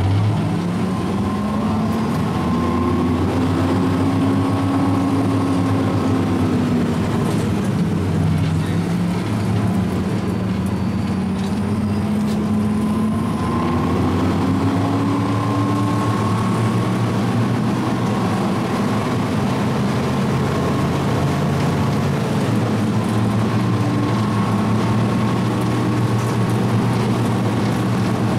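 Type 94 Beach Minelayer Vehicle's engine running steadily under way, heard from the vehicle's open top deck. Its pitch rises over the first few seconds, drops, climbs again about halfway through, then holds steady with the changes in speed.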